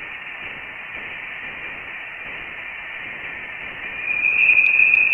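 Voyager 1's recording of electromagnetic waves in interstellar space, converted to sound: a steady static-like hiss that swells louder about four seconds in, with a brighter high note coming through.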